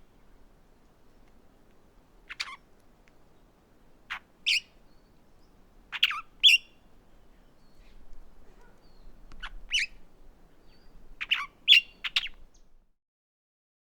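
Galapagos mockingbird calling: about ten short, sharp chirps, in groups of two or three a couple of seconds apart. The calls stop shortly before the end.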